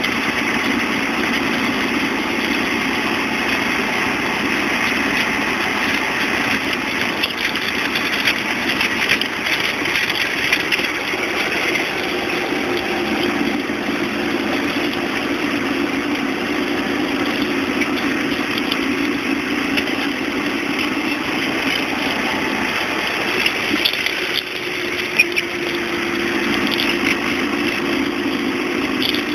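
Classic Rover Mini on the move, its engine and road noise running steadily, with short knocks and rattles breaking in now and then. This is the abnormal noise reported from around the suspension while driving.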